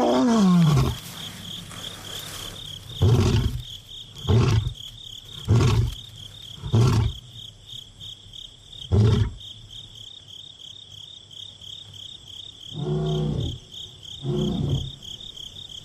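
Male lion roaring: a long falling moan at the start, then a series of short grunting roars about a second or so apart, trailing off into two softer grunts near the end. Crickets chirp steadily underneath.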